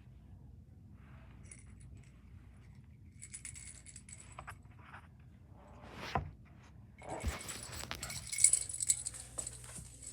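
Small metal pieces jingling, faint and scattered at first, then denser and louder from about seven seconds in, with a couple of knocks just before.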